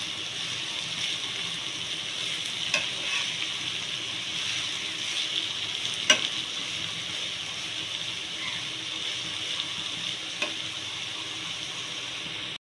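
Shredded cabbage sizzling steadily in hot oil in a pan as it is stirred with a metal spatula. Three sharp clicks of the spatula against the pan, the loudest about six seconds in.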